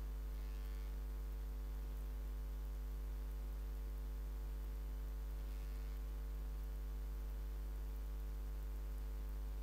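Steady low electrical mains hum with faint background hiss, and two faint brief soft noises, one about half a second in and one a little past the middle.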